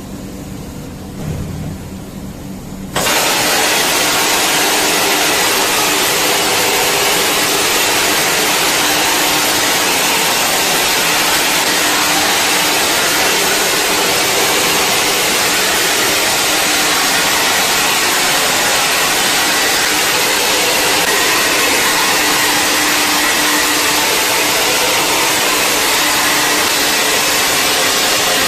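Automatic zinc spray machine spraying: about three seconds in, a loud, steady hiss cuts in suddenly over a quieter machine hum and holds unchanged, with a faint steady hum underneath.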